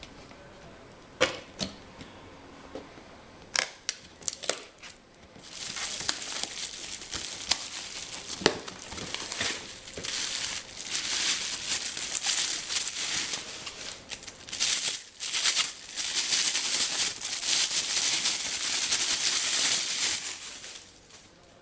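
A few scattered clicks and knocks of things being handled, then plastic packaging wrapping crinkling and rustling steadily as it is handled, stopping shortly before the end.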